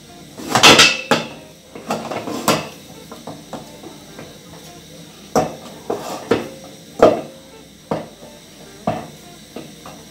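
A cooking spoon scraping and knocking against an aluminium pot as stiff ugali (maize-flour dough) is turned and pressed when it is nearly cooked. There is a loud burst of scraping about half a second in, then separate knocks roughly once a second toward the end.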